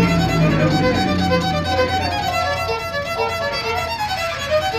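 Violin played with a bow: a melody of quick, short notes.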